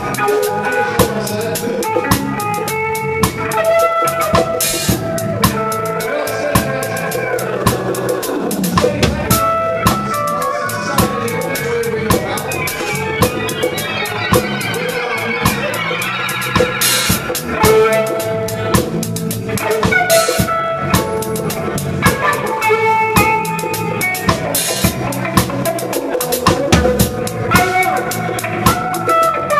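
Reggae band playing live, heard from beside the drum kit: drums and cymbals loud and close, with sustained instrument notes over them. Near the middle, a melodic line slides up and down in pitch.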